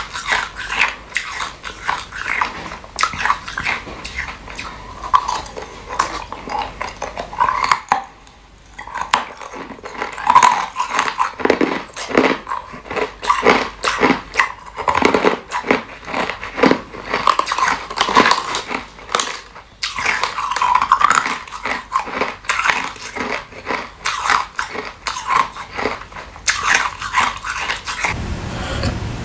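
Clear ice being bitten and chewed close to the microphone: fast, crisp crunching and cracking as chunks broken from a block frozen in a plastic water bottle are crushed between the teeth, with brief pauses.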